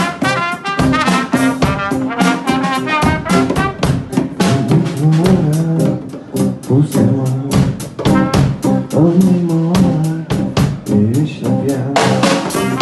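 Live band jamming: a trumpet plays an improvised melodic line over a drum kit and a low bass line. The trumpet is most prominent in the first few seconds, with the drums and cymbals keeping a steady beat throughout.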